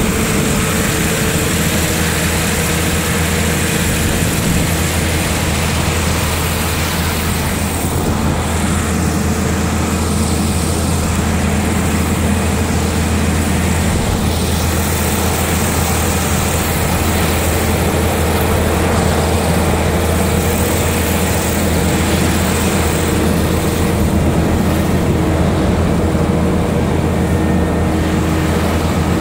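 Heavy engine running steadily at a constant speed, with a strong low hum.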